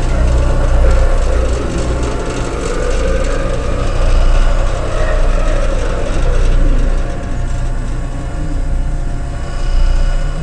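Ambient sound score: a dense, steady drone of layered sustained tones over a heavy low rumble.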